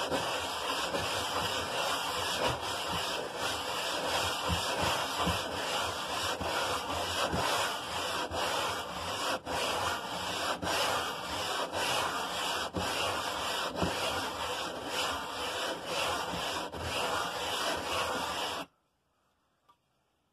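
The cast deck of a Briggs & Stratton 5 hp flathead engine block is rubbed stroke after stroke on sticky-backed sandpaper over a flat board, making a continuous gritty rasp. The deck is being lapped flat to true it for the head. The sanding cuts off suddenly about eighteen seconds in.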